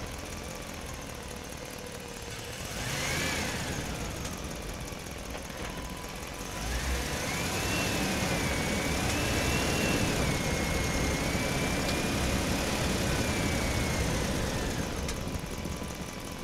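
Small electric motors and gearboxes of RC model trucks and an RC excavator whining as they drive, a brief swell about three seconds in, then a longer, louder run with a wavering whine from about seven seconds until near the end.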